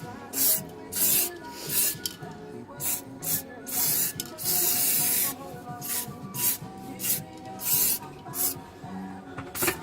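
Spray paint hissing onto the metal case of a microwave in a string of short bursts, with one longer, steadier spray about four seconds in.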